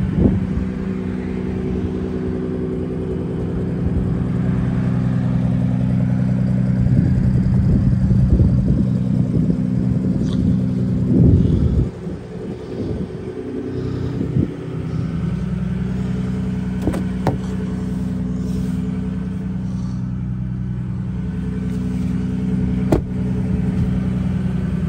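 Ford F-150 Raptor's 3.5-litre twin-turbo V6 idling steadily. There is a short burst of rustling about halfway through.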